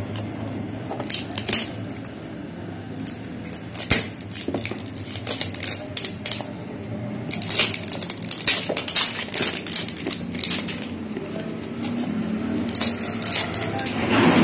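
A new phone's cardboard retail box and its clear plastic wrapping rustling and crinkling as the box is handled and opened, in irregular crackles that come thickest in the middle and near the end.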